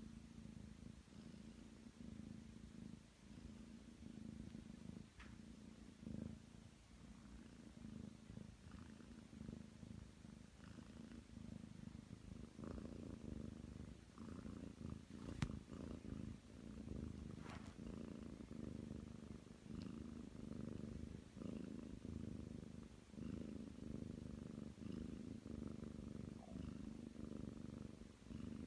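Nine-month-old Ragdoll cat purring steadily close up, a low rumble that swells and fades in slow waves. A single sharp click stands out about halfway through.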